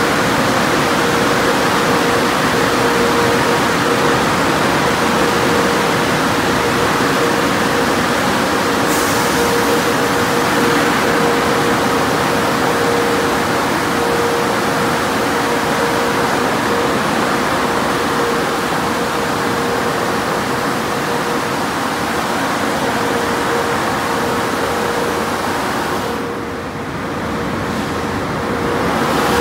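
Car wash tunnel equipment running: a steady, loud rush from the spinning cloth brushes and sprays over a constant machine hum. It briefly turns softer and duller near the end.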